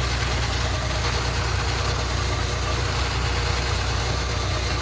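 Engine of heavy farm machinery running at a steady speed: a low, even engine tone with a constant rushing noise over it, with no change in speed.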